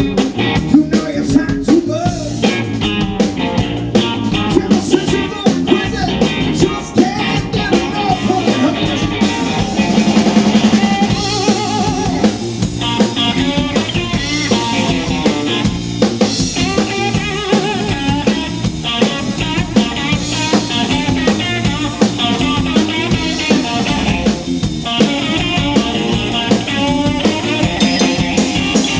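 Live blues-rock band playing: a Stratocaster-style electric guitar takes a lead solo with wavering, bent notes over a steadily beating drum kit.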